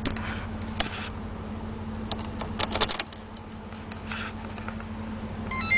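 Ignition key and keyring clicking and rattling in a Chevrolet Lumina's ignition over a steady low hum, then a short run of electronic beeps from the dashboard near the end as the ignition is switched on.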